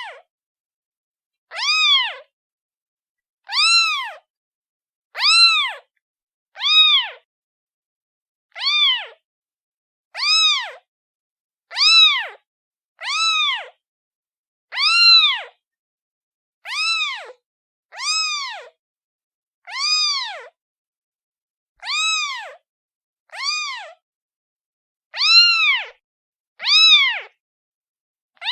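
A kitten meowing over and over: high calls that rise and then fall in pitch, about one every one and a half seconds, with silence between them.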